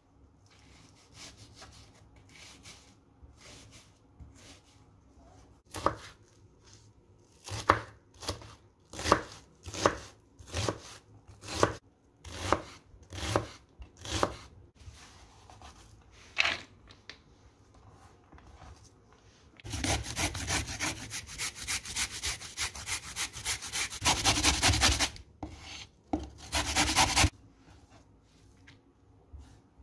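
Knife chopping onion on a wooden cutting board, single sharp knocks about a second apart. Then comes a long fast run of strokes and a shorter run near the end as a carrot is grated.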